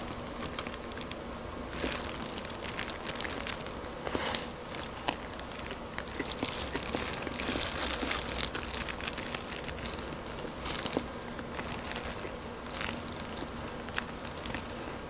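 Eating sounds: bites and chewing of soy-sauce fried chicken, with disposable plastic gloves crinkling as the pieces are handled and pulled apart. Many small crackles and clicks are scattered throughout.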